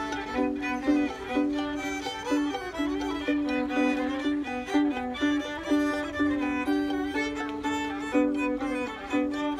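Two fiddles playing a tune together, bowed notes moving in a steady beat.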